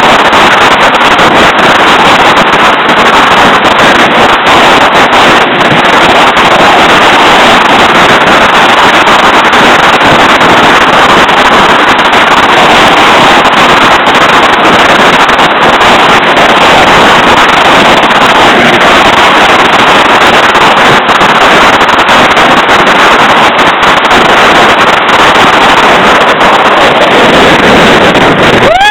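Jet ski under way: a loud, steady rush of wind on the microphone mixed with the watercraft's engine and water noise.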